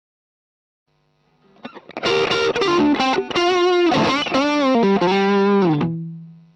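Electric guitar played through a modded 1985 Boss OD-2 Turbo Overdrive pedal: an overdriven lead phrase with string bends and vibrato starts about two seconds in. It ends on a held note that fades out near the end.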